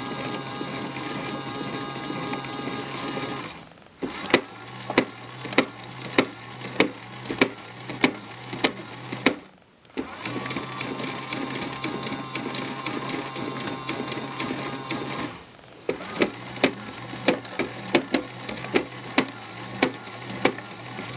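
Battery-powered toy AEG Electrolux Lavamat washing machine running its wash cycle: a steady small-motor hum with a faint whine, twice giving way to spells of sharp, regular clicks nearly two a second, with a brief stop about nine seconds in.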